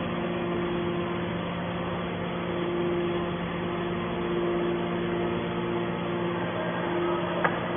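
Scrap metal baler running, a steady machine hum with a constant low drone, and a single sharp click near the end.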